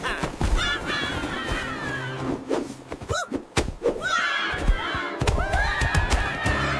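Cartoon slapstick sound effects: a quick run of thuds and thunks, snowballs being thrown and hitting, over background music.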